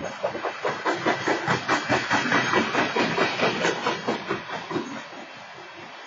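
Freight train's covered hopper cars rolling past, their wheels clacking in a fast, even run over the rail joints with a hiss of wheel and rail noise. The clacking fades near the end.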